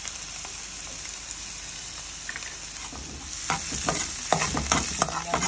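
Diced onion and green peppers sizzling steadily in a hot oiled pan, sautéing with a splash of chicken broth. From about three seconds in, a utensil stirs and scrapes them around the pan in quick strokes, and the sizzle grows louder.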